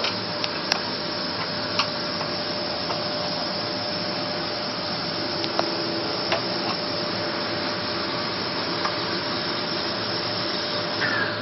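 Steady whirring, hissing noise of a running motor or blower, with a few light clicks over it; it cuts off right at the end.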